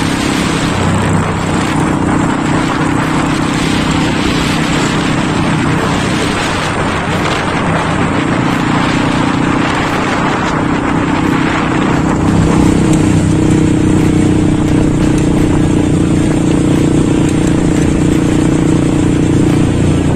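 Small motorcycle engine running steadily at riding speed, with rushing wind and tyre noise on a gravel road. About twelve seconds in the engine note gets a little louder while the rushing noise eases.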